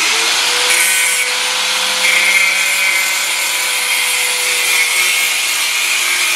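Small handheld grinder running and grinding away plastic around the steering-column clock spring. It is a steady motor whine under a hissing rasp, which bites harder briefly about a second in and again about two seconds in.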